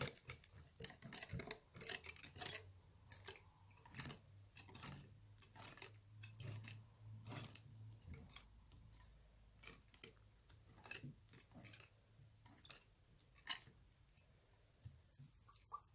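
Slime being worked, making irregular sticky clicks and crackles. They come thick for the first couple of seconds and then more sparsely.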